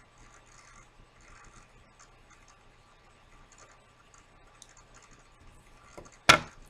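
Faint crackling and small ticks while a tobacco pipe is lit with a lighter and puffed on, then one brief, loud burst near the end.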